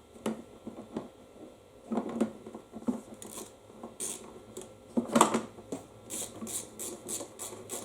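A wrench turning a bolt into the mower's fuel-tank mount: a few knocks of tool against metal, the loudest about five seconds in, then a quick even run of ratchet clicks, about five a second, near the end.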